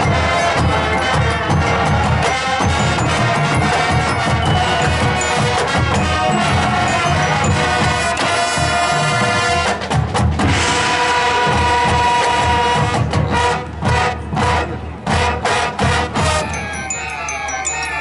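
Marching band playing its field show: full band with percussion, sustained chords giving way to a series of short punched hits with brief gaps, then fast rising and falling runs of high notes near the end.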